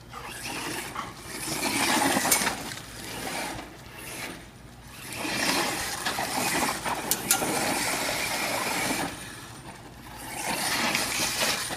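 Redcat Volcano brushless RC truck with a 4000 kV motor driven hard over loose gravel and dirt, its tyres spraying stones in three long surges. Sharp clicks stand out about two and seven seconds in.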